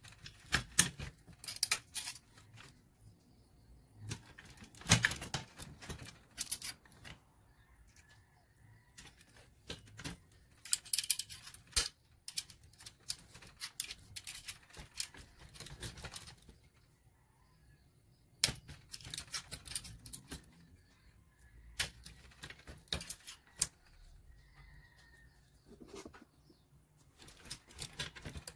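Steel hand tools clicking, clinking and scraping against a Suzuki Hayabusa's aluminium cylinder head and valve gear as the valves are taken apart. The sound comes in irregular clusters of sharp metallic clicks with short quiet gaps between them.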